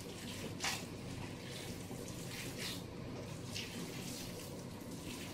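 Hands kneading and squeezing a raw mince and egg meatloaf mixture in a bowl: faint wet squelching every second or so.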